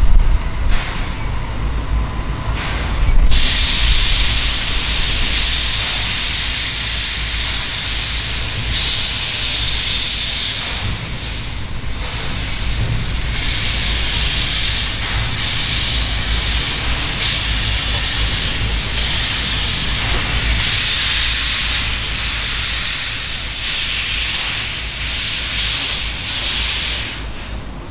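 Steam locomotive letting off steam as it moves off the turntable: a loud hiss that sets in about three seconds in and swells and eases every few seconds, over a low rumble.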